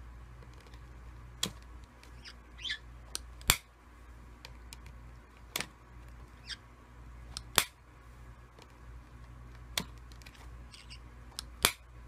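Metal kiss-lock clasp of a coin purse snapping sharply about every two seconds, six times, as a white-bellied caique works it open and shut with its beak. A few short, high rising squeaks come between the snaps.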